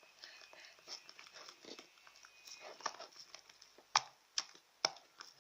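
Slime-making materials being handled on a tabletop: soft crackling and scattered small clicks, with three sharper clicks near the end.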